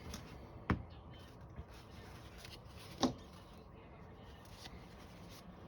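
Two short light knocks, about two seconds apart, from small parts or tools being handled and set down on a workbench, over quiet room tone.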